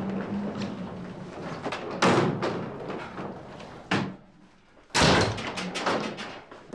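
Doors slamming shut: loud sudden slams about two and five seconds in, with a shorter thud in between.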